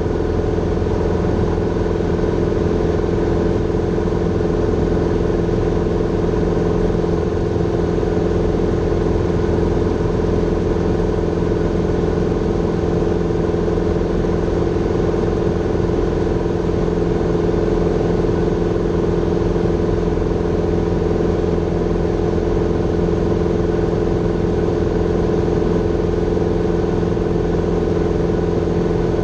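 Grumman Tiger's four-cylinder Lycoming O-360 engine and propeller droning steadily at power in flight, heard inside the cabin.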